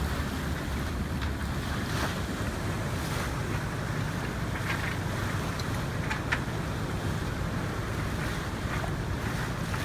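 Steady wind buffeting the microphone and water rushing past the hull of a yacht under way, with a few faint clicks.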